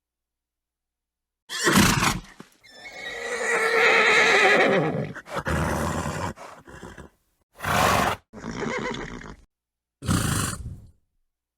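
A horse neighing: a long whinny with a wavering pitch about three seconds in, set among several shorter horse sounds, each cut off by dead silence.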